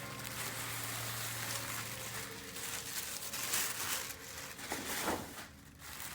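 Wrapping paper rustling and crinkling in irregular bursts as a purse is unwrapped by hand, loudest a little past the middle.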